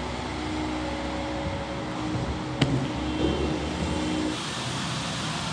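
Steady mechanical hum with a few held tones over a noisy background, with a single sharp click about two and a half seconds in. About four seconds in the hum stops and a brighter hiss takes over.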